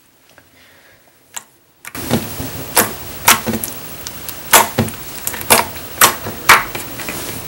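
Sticky, jiggly slime from a Nickelodeon slime kit being squished and poked close to the microphone for ASMR, giving sharp wet clicks and pops about every half second. A steady hiss comes in about two seconds in.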